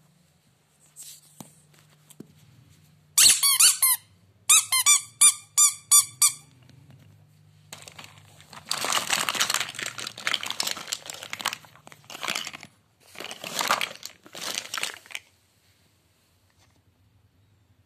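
Rubber squeeze toys squeaking: a run of about eight quick, high squeaks. Then a long stretch of rustling as plastic toys in a pile are handled and shuffled, in two stretches.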